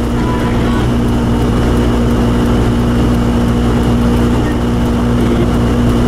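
Steady cabin noise inside a moving 1990 Toyota 4Runner: engine and tyres on a snow-covered road, with the heater blower running on high, which makes it loud.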